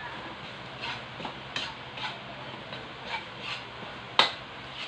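A utensil scraping and tapping in a frying pan as corned beef and egg sizzle, in short strokes about every half second, with one sharper knock near the end.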